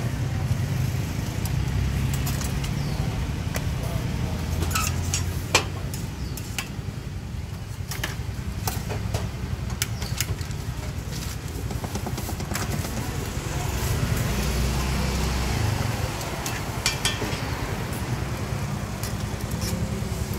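A steady low rumble, with scattered sharp clicks and clanks of metal cooking utensils and pan lids as pancakes are lifted from their pans, cut and new batter is ladled in.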